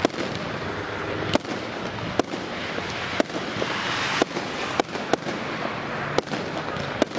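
Aerial fireworks bursting: a run of about ten sharp bangs at uneven gaps, roughly one a second, over a steady hiss.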